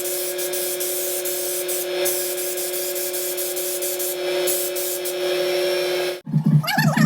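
Steady spraying hiss over a steady two-tone hum, cut off abruptly about six seconds in by music with a pulsing bass beat.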